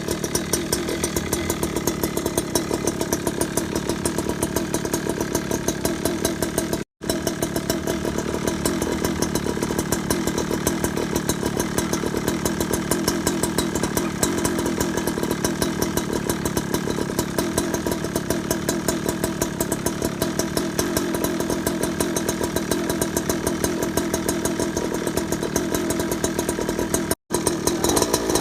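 Evo 71cc scooter's small two-stroke engine with a tuned expansion-chamber exhaust, running steadily with a fast, even exhaust pulse. The sound drops to silence for an instant twice.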